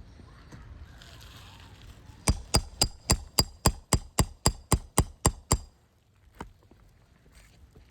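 Hammer striking a roof snake, a shingle nail ripper, to draw a roofing nail out from under a shingle: about thirteen sharp, ringing metallic blows, roughly four a second, starting about two seconds in and stopping suddenly.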